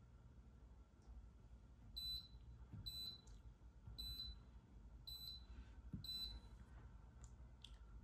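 Touchscreen of an Infracont Sgrain near-infrared grain analyser beeping at each tap as its menus are navigated: about five short, high beeps at irregular intervals roughly a second apart, starting about two seconds in.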